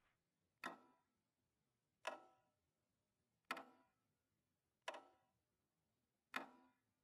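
A clock ticking slowly: five sharp ticks, evenly spaced about a second and a half apart, each ringing briefly.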